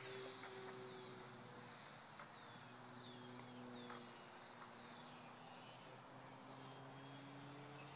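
Small electric motor of a home-built RC flying wing whining steadily at a high pitch, faint and distant as the plane flies overhead, its pitch drifting slightly as the throttle and distance change.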